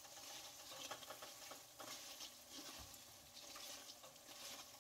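Faint scraping and light sizzling as a slotted metal spatula is raked through pork cracklins frying in rendered lard. The bubbling has died down, a sign that the moisture is cooked out and the cracklins are nearly done.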